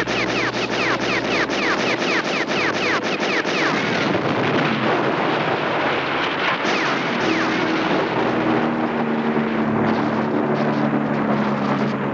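Battle soundtrack of rapid gunfire, each shot followed by a short whistle falling in pitch, about three a second for the first four seconds. This gives way to a dense din of explosions and gunfire. Low sustained music notes come in under it about eight seconds in.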